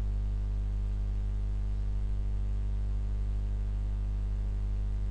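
Steady electrical mains hum, low and unchanging, with a faint buzz of evenly spaced overtones above it.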